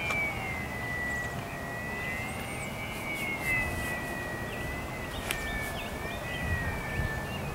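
Electric motor and propeller of a Bixler 3 model plane flying at a distance: a thin steady whine that drops in pitch during the first second, then wavers gently, over low wind rumble on the microphone.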